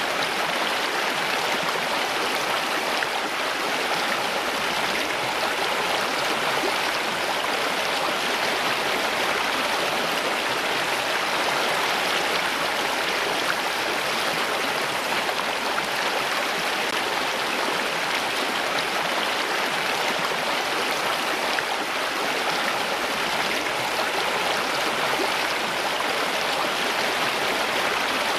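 Steady rushing and splashing of flowing water, like a stream or small cascade, unchanging throughout.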